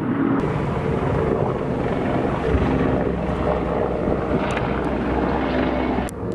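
Military helicopter flying, a steady loud rumble of rotor and engine noise; the low part of the rumble cuts off abruptly near the end.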